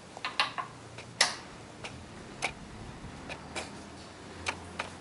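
Scattered light clicks and taps at irregular intervals, a small cluster near the start and the loudest about a second in, over a faint low hum.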